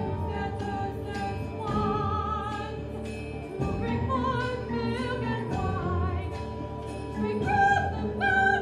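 A woman singing opera, holding notes with vibrato, over instrumental accompaniment with light percussive ticks.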